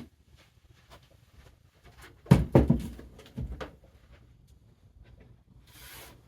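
A cluster of sharp knocks and thumps about two seconds in, as of things being handled and set down in a small room, followed by a short rustling scrape near the end.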